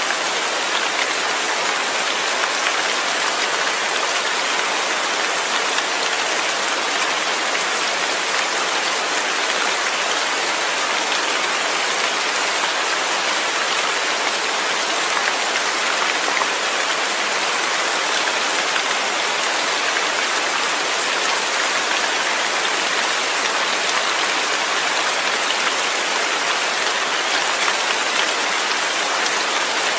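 Steady rain falling in an even, unbroken hiss, with no thunder.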